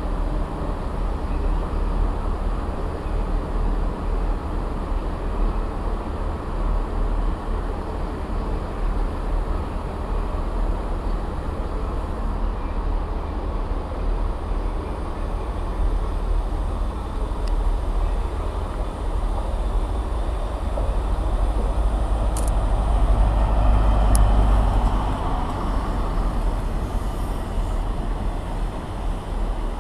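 Train at a railway station: a steady low rumble that swells for a few seconds about three-quarters of the way through, with a few brief clicks late on.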